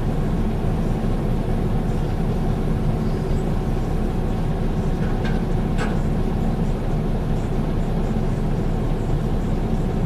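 New Holland crawler excavator's diesel engine running steadily as the machine swings and digs, with two short clanks a little after halfway.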